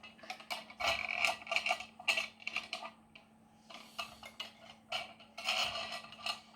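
Cans and parts of a homemade prototype being handled: irregular scraping and light rattling in two clusters, a pause of about a second and a half between them.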